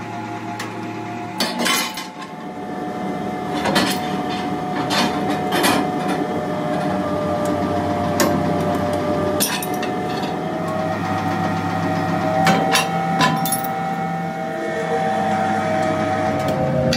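Heavy mechanical power press running with a steady hum, with irregular sharp metallic clanks as its ram punches through a steel plate.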